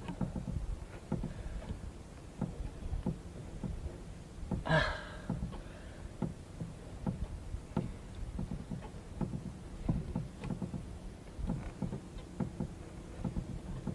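A handline being hauled in hand over hand from a small wooden outrigger canoe, with a hooked fish on the line: light, irregular knocks and rubbing against the hull over low water sounds. One louder, brief rustle comes about five seconds in.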